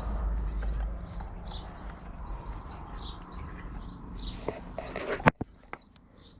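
Short, repeated chirps of small birds over a low rumble that eases after about a second. About five seconds in comes one sharp click, the loudest sound, followed by two fainter clicks.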